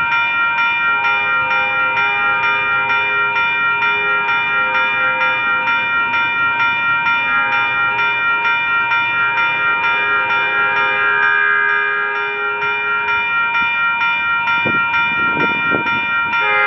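Railroad grade-crossing bell ringing in steady, evenly spaced strikes, about two to three a second. A few short sliding sounds come near the end.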